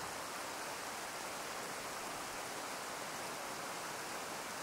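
Steady, unchanging rush of running water.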